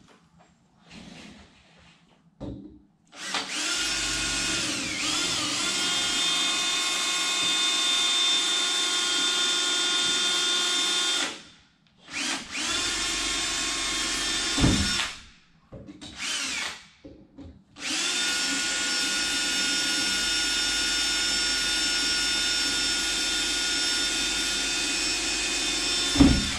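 Cordless drill running at steady speed in long runs of several seconds, stopping and starting again four times, drilling into the sliding patio door frame. Its pitch sags briefly under load early in the first run, and there is a short knock near the end.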